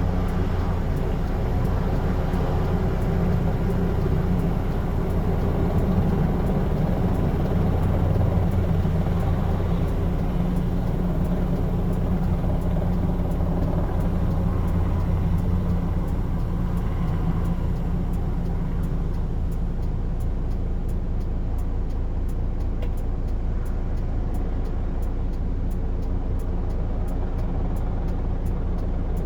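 Aircraft running close by: a loud, steady engine sound with several held tones. In the second half, a fast, even pulsing comes in.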